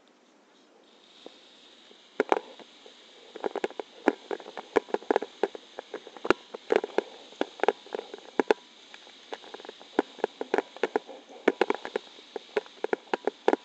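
Irregular sharp taps and knocks, several a second from about two seconds in, over a faint steady hiss: footsteps and the handling of a paraglider's wing and lines close to a head-mounted camera.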